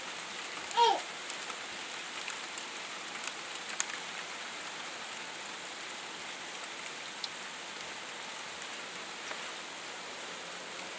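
Sleet and small ice pellets falling steadily, a constant rain-like hiss with scattered light ticks of pellets striking. About a second in, a short pitched squeak falls in pitch and is the loudest moment.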